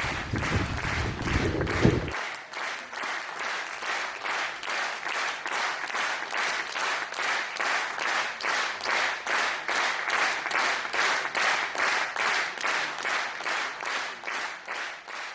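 Applause in rhythmic unison, an even beat of about three to four claps a second. For the first two seconds it plays over wind rumbling on the microphone, which cuts off abruptly.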